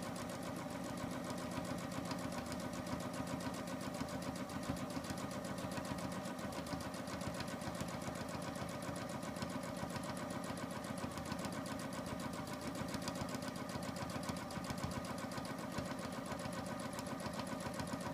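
Janome 6500 sewing machine stitching at a steady speed without stopping, free-motion quilting with the feed dogs dropped while the fabric is guided by hand.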